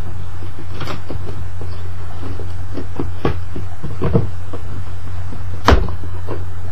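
Cardboard shipping box being cut open with a small knife: short scraping and cutting strokes through the tape and cardboard, with one sharper snap near the end, over a steady low hum.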